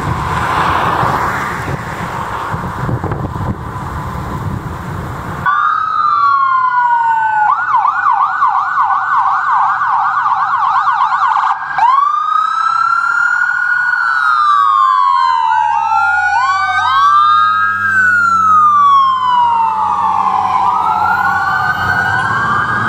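About five seconds of steady rushing vehicle noise, then emergency vehicles' electronic sirens: a wail, a fast yelp at about two sweeps a second, then overlapping wails from more than one siren over a low steady hum.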